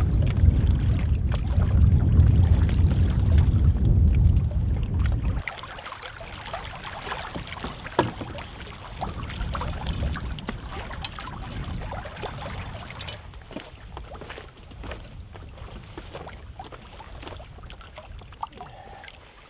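Canoe out on open water with a loud low wind rumble on the microphone, which cuts off suddenly about five seconds in. After that, small water lapping against the canoe's hull and shore rocks, with scattered light clicks and one sharper knock about eight seconds in.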